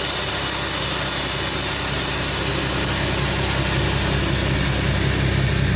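Nissan 370Z's Air Lift Performance air-ride suspension dumping air from its bags to drop the car to its lowest height: a steady, loud hiss of escaping air. The car's V6 idles underneath.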